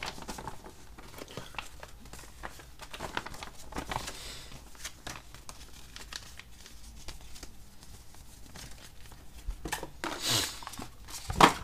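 A folded paper instruction sheet and paper card being handled and folded, crinkling and rustling with small clicks. A louder rustle comes about ten seconds in, and a sharp click just before the end.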